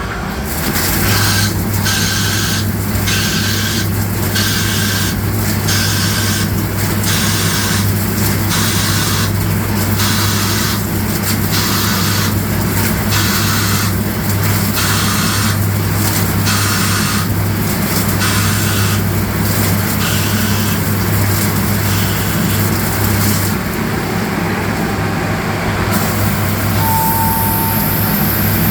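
CNC lathe running a cut on a goose call, most likely the finish pass on the inside: a steady machine hum under a hiss that pulses about once a second, easing off in the last few seconds.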